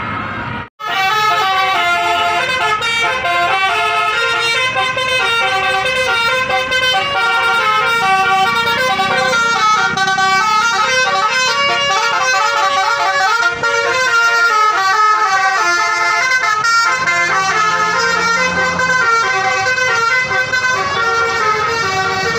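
Bus 'telolet' multi-tone Basuri horn playing a melody, its tones stepping up and down in a repeating tune. The horn starts after a brief break less than a second in.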